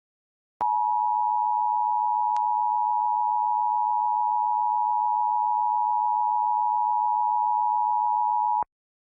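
Emergency Alert System attention signal: the two-tone EAS alert tone, held steady for about eight seconds and cutting off sharply. It marks that an emergency alert message follows, here the statewide required monthly test.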